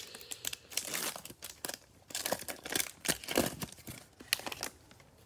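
Foil trading-card pack wrapper being torn open and crinkled, an irregular run of sharp crackles and rustles that dies away near the end.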